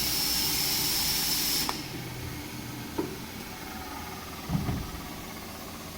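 Bomar AL400 semi-automatic circular saw at the end of a cut in aluminium: a steady hiss with a high whine cuts off suddenly a little under two seconds in. A low machine hum stays on, with a couple of small clicks and a knock near the end.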